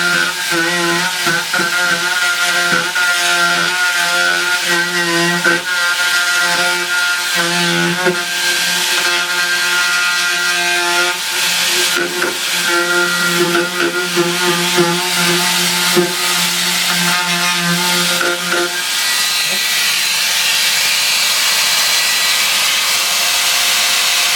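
Electric power tool running and cutting into wood, its motor buzzing steadily and wavering as the load changes. About 19 seconds in the buzz stops and a steadier hiss-like noise takes over.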